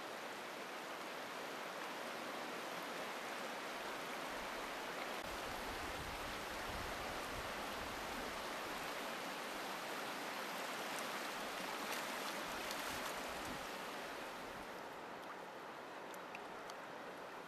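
Shallow river running over stones: a steady rushing hiss of moving water, easing slightly near the end.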